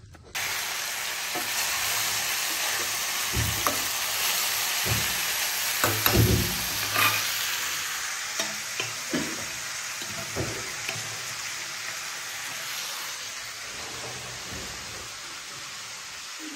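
Steady sizzling of food cooking in a metal pan, with scattered clinks and knocks of a metal utensil against the pan and pots, the busiest about six seconds in.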